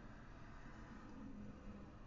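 Faint, steady low hum over background noise, with no distinct event.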